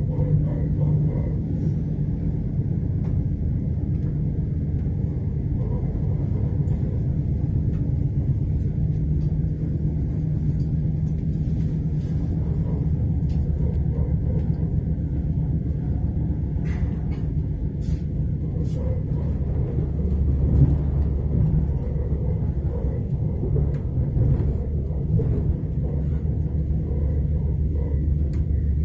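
Lastochka (Siemens Desiro RUS) electric train heard from inside the carriage while running: a steady low rumble from the running gear on the rails, with a few faint clicks.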